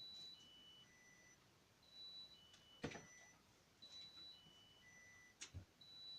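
Refrigerator's open-door alarm beeping a short four-note electronic tune that repeats about every two seconds. A sharp knock comes about three seconds in and a couple of soft thumps near the end.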